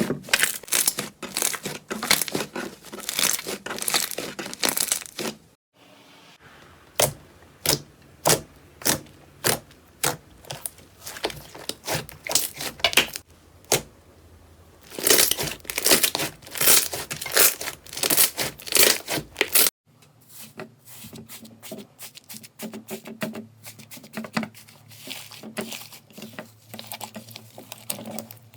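Slime being pressed and pulled close to the microphone, giving runs of sharp crackles and pops. The sound changes abruptly about five and a half seconds in and again near twenty seconds. After the second change the crackles are quieter and sparser, over a faint low hum.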